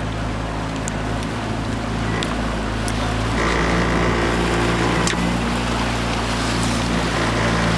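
Boat engine running steadily, with the rush of wind and water alongside.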